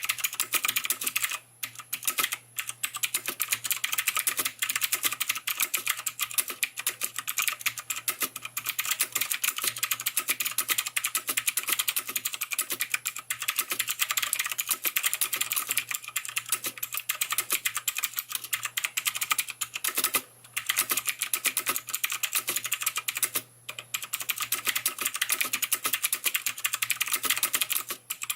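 Fast, continuous typing on an Azio MGK1 mechanical keyboard with clicky Kailh Blue switches, the key clicks coming in a dense stream with a few short pauses.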